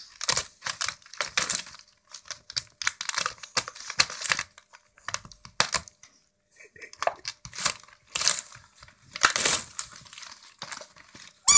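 West Highland White Terrier tearing and nosing glossy Christmas wrapping paper off a present: irregular bouts of paper crinkling, rustling and ripping with short pauses between them. A short, loud, high squeak sounds right at the end.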